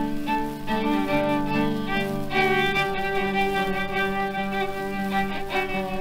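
Background music with sustained string-like notes that change every second or so.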